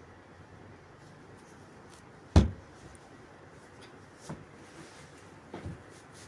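A spoon stirring thick gram-flour batter in a plastic bowl, knocking against it: one sharp knock about two seconds in, then two lighter knocks.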